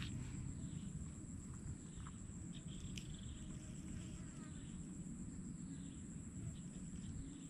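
Insects trilling on one steady high pitch, with a few faint chirps and a low rumbling noise beneath.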